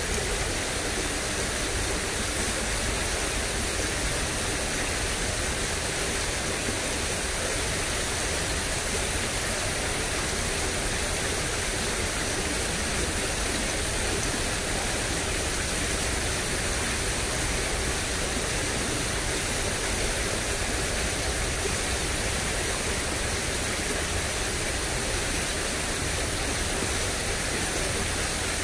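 Steady, even rush of flowing water in a drainage ditch swollen after heavy rain, unchanging throughout.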